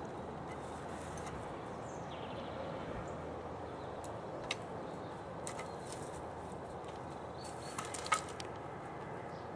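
Steady outdoor background hiss with faint bird chirps. A few light clicks and knocks come as the deerhound noses at a small ball and picks it up, the sharpest near the end.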